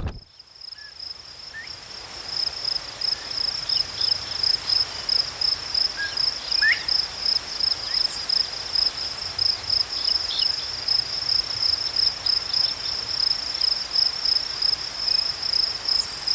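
An insect trilling steadily at a high pitch, with a few faint short chirps.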